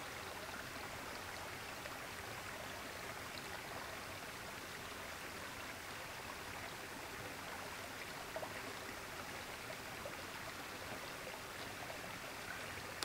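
A creek flowing over rock ledges: a steady, even rush of running water, with a single faint click about eight seconds in.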